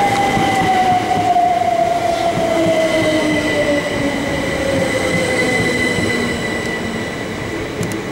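Southern Class 377 Electrostar electric multiple unit running into the platform and slowing, its wheels rumbling on the rails under a traction-motor whine that falls steadily in pitch as it brakes.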